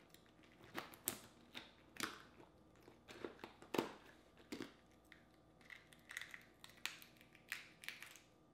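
Boiled crawfish being cracked and peeled by hand: an irregular run of sharp shell cracks and crinkles, the loudest about four seconds in.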